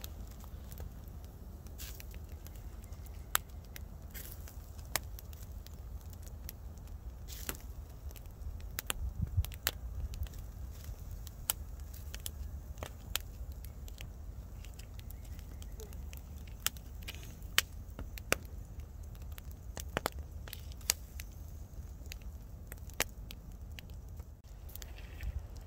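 Open wood fire crackling, with irregular sharp pops from the burning logs over a low, steady rumble of wind on the microphone.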